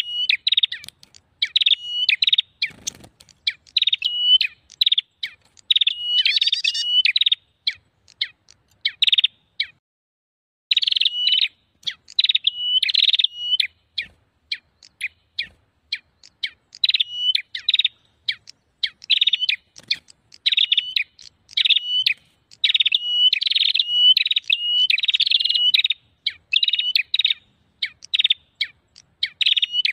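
Prenjak (prinia) calls, the agitated 'ribut' calling used as a lure to draw in wild prenjak: quick, sharp chattering phrases repeated in dense runs, with a brief break about a third of the way in and a longer one around halfway.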